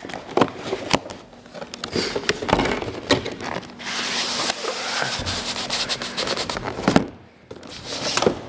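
Close handling noise: a camera being set down and rubbed against, with many sharp clicks and knocks and a crinkly rustling of cardboard and plastic packaging, densest in the middle.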